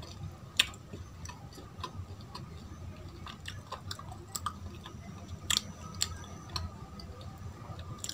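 Soft mouth clicks and chewing of Indian milk sweets, sparse and irregular, with one sharper click about half a second in. A faint steady hum runs underneath.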